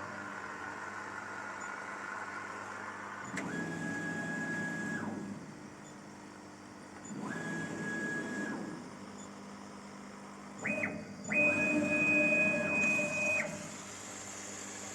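Stepper motors of a KAMACH 1610 laser cutter whining as the laser head's gantry makes a series of moves, each rising quickly to one steady pitch and dropping off. There are two moves of about a second and a half, a quick double jog, then a longer, louder, higher-pitched move near the end, over a steady machine hum.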